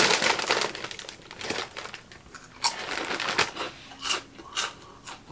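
Crinkly plastic snack bag rustling as it is handled, then several sharp separate crunches of crunchy chips being chewed.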